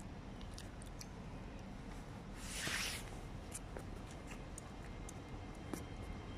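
Hitachi Class 800 Azuma train moving slowly at low speed, giving a faint steady low rumble with a few light clicks. A short hiss comes about two and a half seconds in.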